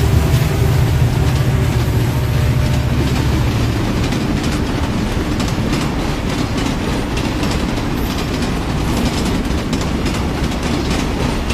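Train running on the rails: a heavy low rumble that eases off after about three seconds, then a steady rattle of quick repeated knocks from the wheels.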